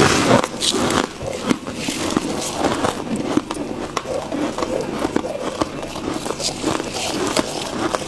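Freezer frost being bitten and chewed: a continuous run of crisp crunches and crackles.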